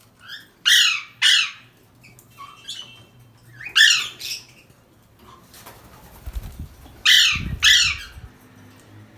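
Pet parrot giving loud, harsh squawks in three pairs, each call sweeping downward in pitch. Low thumps come between and under the last pair.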